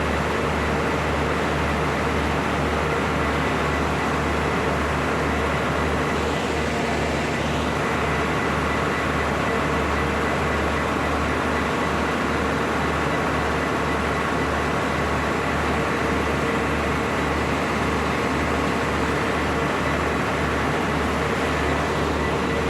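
Diesel engine of a stationary train idling steadily: a low, evenly pulsing throb with a steady whine above it.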